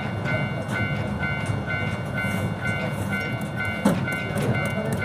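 An electronic signal beeps steadily about twice a second, over the rumble of trains and city traffic. A single sharp knock comes near the end.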